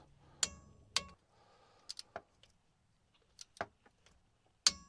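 Torque wrench clicking as the differential cover bolts are tightened to spec, alternating around the cover: sharp metallic clicks with a short ring, the loudest about half a second in, at one second and near the end, with lighter ratchet ticks in between.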